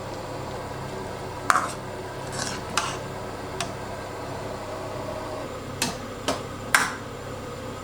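A utensil stirring a pot of simmering soup, knocking sharply against the pot about six times, over a steady low background hum.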